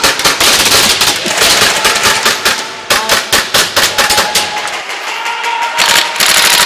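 Airsoft guns firing in rapid bursts and single shots, a fast clatter of sharp pops echoing in a large warehouse. The firing is densest at the start and again near the end.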